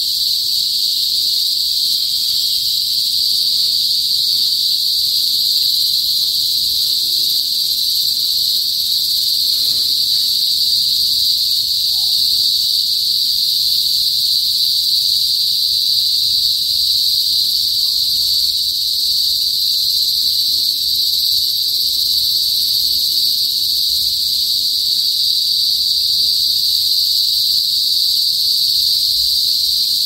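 Cicadas (kuliglig) singing in the trees: one continuous, loud, high-pitched buzz that holds steady without a break.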